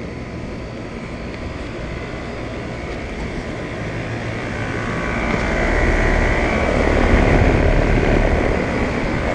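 Outdoor central air conditioner unit running: the condenser fan whooshes over a low compressor hum. It grows louder about halfway through, peaks, then eases slightly.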